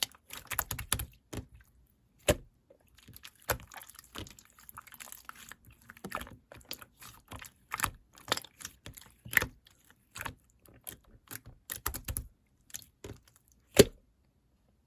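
Irregular sharp clicks and taps, a few a second, with a louder knock near the end.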